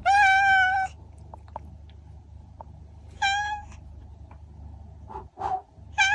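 Domestic cat meowing in drawn-out, even-pitched calls: a long meow of nearly a second, a shorter one about three seconds in, then a couple of fainter short mews near the end.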